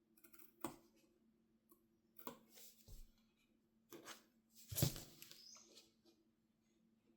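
Scattered handling sounds of sewing work: about five separate light clicks and knocks with short rustles, over a faint steady hum.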